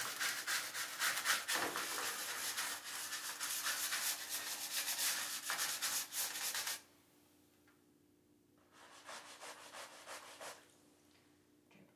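Small bristle scrub brush scrubbing soapy suds over the edge of a painted tray in quick back-and-forth strokes. The scrubbing stops about seven seconds in, and a shorter burst of the same rubbing comes around nine seconds in.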